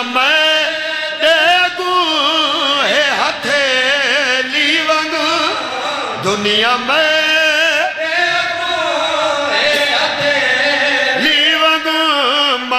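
A man's solo voice singing a devotional qaseeda in long, wavering melismatic phrases with held notes.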